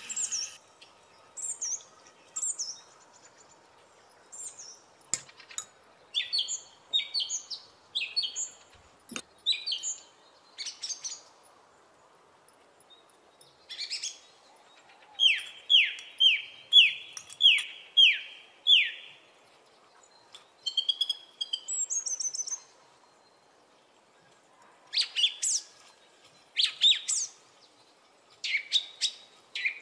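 Small birds chirping and singing, with scattered short calls and trills and, about halfway through, a run of about eight quick whistles that each sweep downward.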